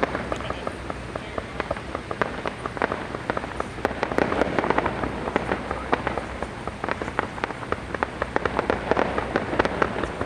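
Fireworks crackling: a dense run of many small rapid pops, with thicker stretches about four seconds in and again near the end.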